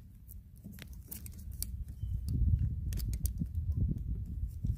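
Small plastic clicks and rubbing as a wiring connector is worked by hand into the socket of a 2005 Honda Accord's dome light housing. A low handling rumble with soft knocks grows about two seconds in.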